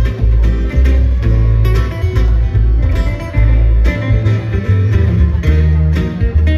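Two acoustic guitars and an upright double bass playing instrumental music: quick picked guitar notes over a deep bass line.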